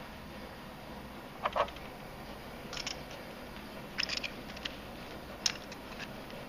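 Scattered light clicks and clinks of silver bullion being handled: a 5 oz silver bar lifted off a plastic digital scale and set down, and a stack of 1 oz American Silver Eagle coins clinking together as it is picked up. About six short clicks, the sharpest a little past halfway.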